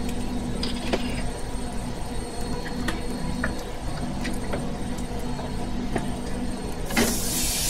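A low steady hum with a few light clicks, then near the end a sudden loud sizzle as sliced cucumbers are tipped into hot oil in a frying pan.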